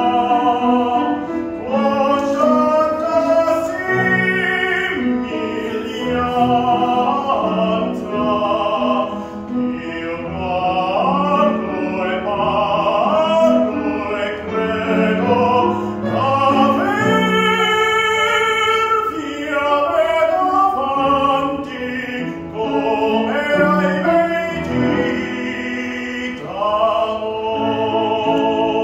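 A male classical singer singing in operatic style with strong vibrato on long notes, rising to a long held high note a little past halfway.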